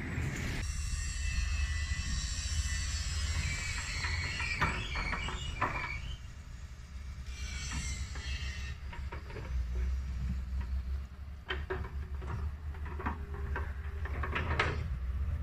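Outdoor roadside ambience: a steady low rumble with the hiss of passing traffic for the first half or so, and scattered short clicks and knocks.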